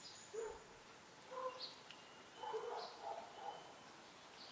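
Faint short animal calls, one every second or so with a cluster of several near the middle, and thin high bird chirps.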